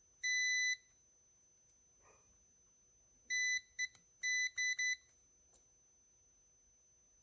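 Electronic piezo beeper sounding a single high beep of about half a second, then a choppy run of several short beeps a few seconds later, with a sharp click among them.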